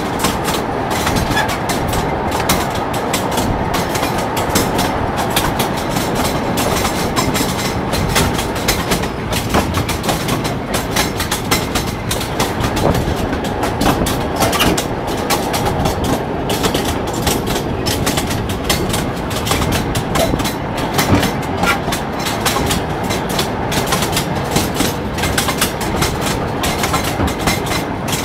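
Rail draisine rolling along the track, its wheels knocking steadily over the rails in a continuous clickety-clack.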